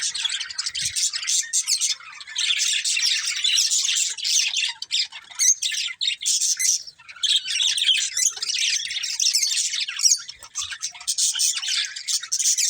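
Budgerigars chattering and chirping: rapid, busy warbling and squawks, in long stretches broken by brief pauses.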